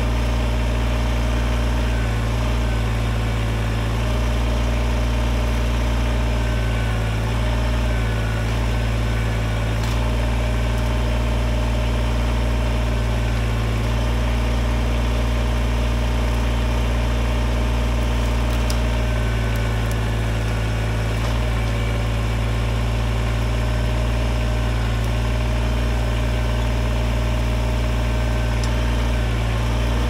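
Kubota BX23S compact tractor's three-cylinder diesel engine running steadily while its backhoe digs, the note shifting slightly now and then as the load changes.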